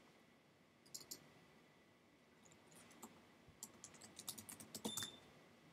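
Faint keystrokes on a computer keyboard: a couple of taps about a second in, then a quick run of keystrokes between about three and a half and five seconds in.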